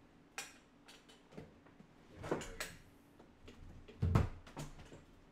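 Scattered knocks and bumps of someone moving about and handling things at a desk, the loudest a dull thump about four seconds in.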